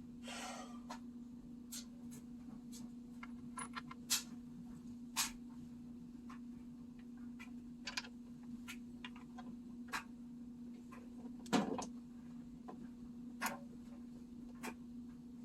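Scattered light clicks and metallic knocks of tools and parts being handled while a washing machine is put back together, the loudest about four, five and eleven and a half seconds in, over a steady low hum.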